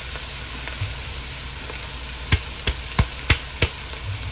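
Chopped shallots sizzling steadily in oil in a stainless steel kadai, just after ground spice powder has been added on top. A little past halfway come five sharp metal clinks in quick succession, a steel spatula knocking against the pan.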